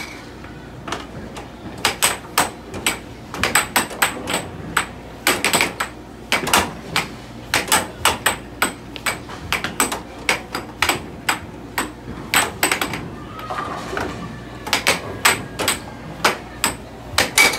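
Air hockey rally: the puck and mallets clacking, with the puck knocking off the table's rails, in quick irregular runs of sharp knocks over a steady low hum.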